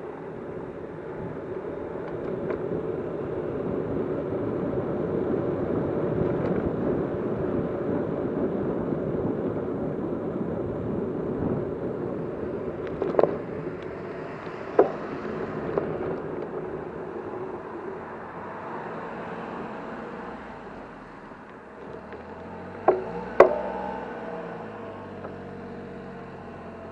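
Motor vehicle noise, steady, swelling for several seconds and then easing off, with a few sharp clicks in the second half.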